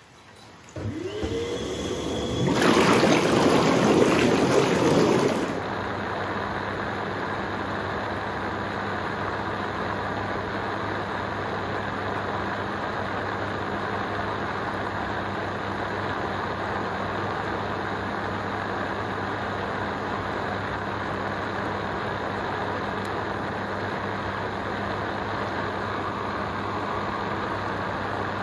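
Hot tub jets starting up: a pump motor whine rising in pitch about a second in, a loud rush of churning water and air for about three seconds, then a steady churning of water over a constant motor hum.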